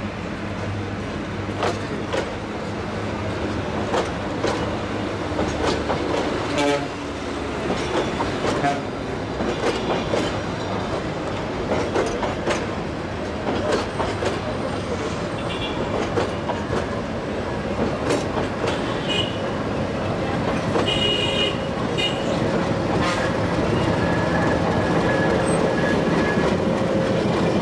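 Metre-gauge Nilgiri Mountain Railway train passing close: the coaches' wheels click irregularly over the rail joints, with a few brief wheel squeals. Near the end the diesel locomotive at the rear of the train comes by, and a steady engine sound grows louder.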